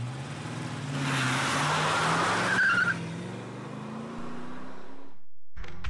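Soapbox derby racer coasting past on asphalt: a rushing swell of hard wheels and wind that peaks a couple of seconds in and fades, over a low hum rising slowly in pitch. It cuts off suddenly about five seconds in.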